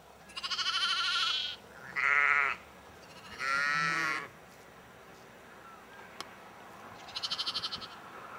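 Ewes and lambs bleating: four separate calls, the first and last high and wavering, the middle two lower.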